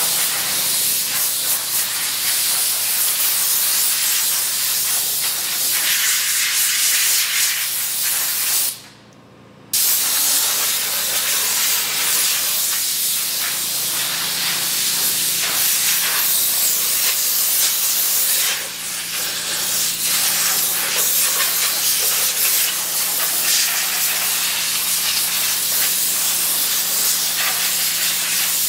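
A jet of water sprays hard onto a motorcycle as a steady, loud hiss. It stops for about a second around a third of the way in, dips briefly near the middle, and a faint steady low hum sits underneath.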